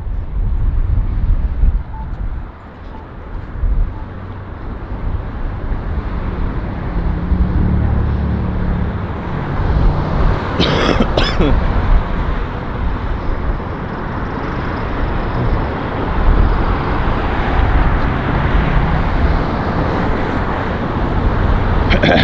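Wind buffeting the microphone in a steady low rumble, mixed with road traffic passing by, the traffic swelling in the second half. A brief sharp noise cuts through about halfway.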